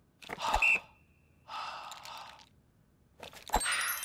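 Cartoon sound effects: a short knock with a brief high tone, a breathy rush, then another knock followed by a bright, many-toned sparkling chime near the end.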